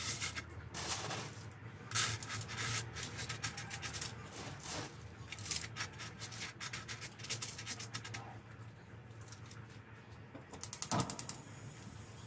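Coarse salt crunching and rattling as hands spread and press it flat over foil in a frying pan: dense, rapid gritty clicks that ease off after about eight seconds, with a brief louder crunch about eleven seconds in.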